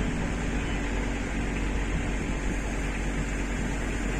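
Steady mechanical hum and hiss, with a low drone underneath.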